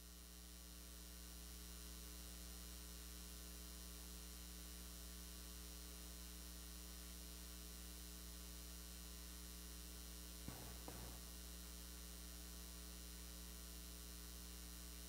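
Near silence with a quiet, steady electrical mains hum, and one faint brief sound about ten and a half seconds in.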